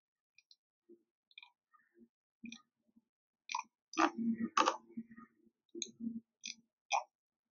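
Scattered short clicks and taps of someone handling a phone or computer, with a brief stretch of faint, muffled voice and hum about two-thirds of the way through.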